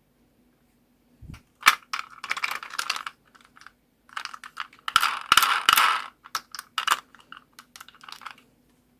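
Small plastic beads clicking and rattling against each other in two busy bursts, the first starting with a sharp click under two seconds in and the second, longer one running from about four seconds to near the end with several sharp clicks.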